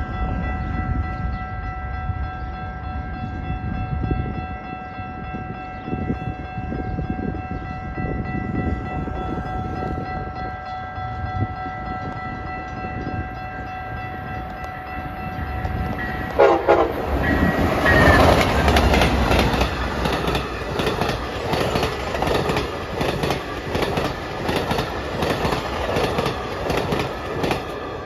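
Train passing: the horn of an Amtrak Siemens ALC-42 Charger locomotive is held as a long steady chord while it approaches, and the pitch drops as it goes by about two-thirds of the way through. Then the bi-level Superliner passenger cars rush past with a rhythmic clickety-clack of wheels over the rail joints.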